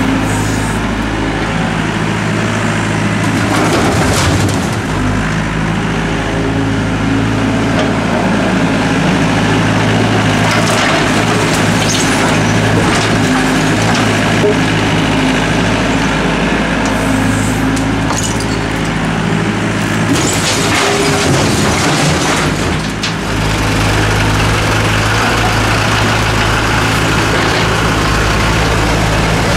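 Diesel engine of a Doosan DX55W wheeled mini excavator running under hydraulic load, with bricks and concrete rubble clattering as the bucket digs and dumps. A few seconds from the end a steadier, deeper engine note takes over.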